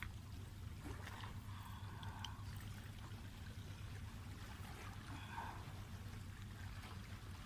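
Faint water trickling and lapping over a steady low rumble.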